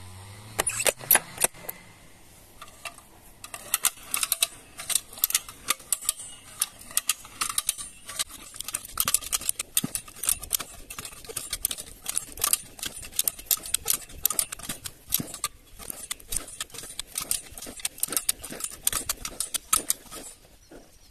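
A 4-tonne EDA hand-lever ratchet cable puller (come-along) being pumped under load, its ratchet pawls clicking in a rapid, continuous series as the drum winds in the steel cable.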